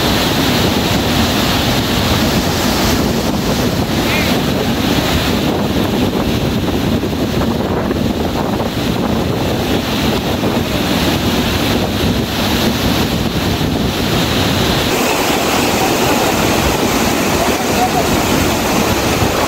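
Floodwater pouring steadily over a reservoir weir, a loud, even rush, with wind blowing on the microphone.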